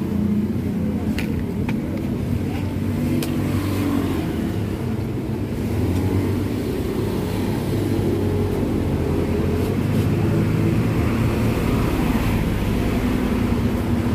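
A motor vehicle engine idling steadily, with a few light clicks in the first few seconds.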